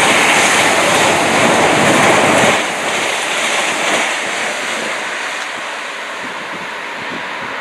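A train passing at speed, a loud rushing roar with no engine note that drops sharply about two and a half seconds in as it goes by, then fades away.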